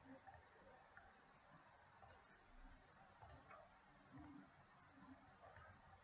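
Faint computer mouse clicks, scattered about once a second, over near-silent room tone.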